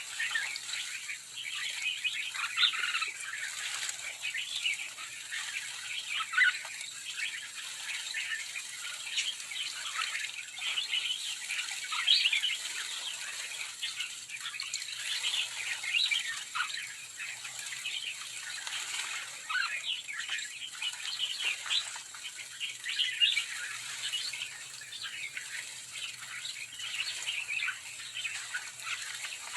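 A large flock of sooty-headed bulbuls calling continuously, with many short, overlapping chirps and chattering calls, mixed with wing flapping as the birds bathe.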